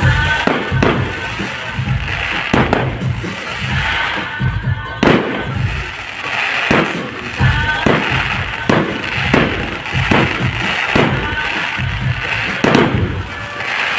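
Fireworks going off, a rapid irregular series of sharp bangs and crackles, with music playing underneath.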